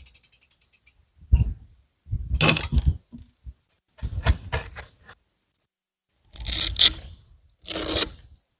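Bicycle freewheel ticking rapidly and slowing as the wheel coasts to a stop, then five short bursts of hissing, scraping noise while the bike is washed and cleaned.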